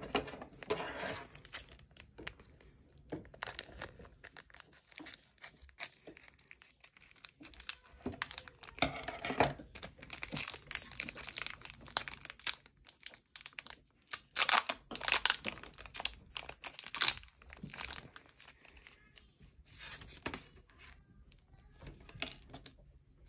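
Foil wrapper of a Japanese Pokémon Eevee Heroes booster pack being torn open and crinkled, in irregular bursts of tearing and rustling with short pauses between.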